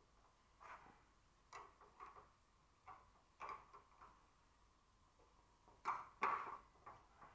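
A small spanner working on a cab door's hinge bolts: a few short, irregular clicks and scrapes of metal, two louder ones about six seconds in.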